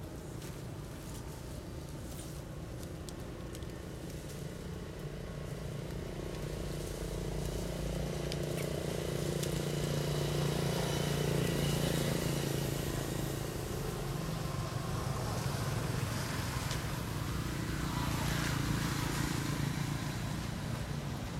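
Low engine hum of passing motor traffic that swells louder around the middle and again near the end, over faint outdoor background noise.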